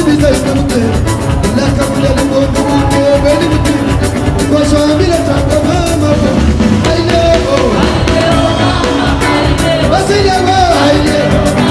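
Live band music with a lead singer over a steady, fast percussion beat. The high percussion drops out about halfway through and comes back near the end.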